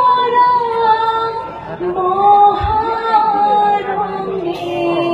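Assamese devotional naam (dihanam) being sung, voices holding long notes that slide from one pitch to the next. A brief low thump sounds about halfway through.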